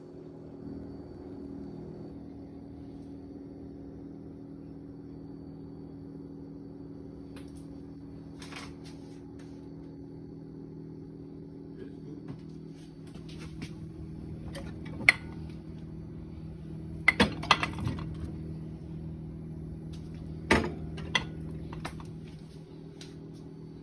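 Steady hum of a running kitchen appliance, with scattered clinks and knocks of dishes and utensils, several sharp ones in the second half.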